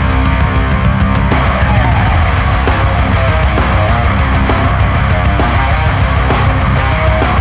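Heavy metal song played back through Audeze LCD-2 Classic headphones and recorded binaurally, with dense, loud guitars and drums.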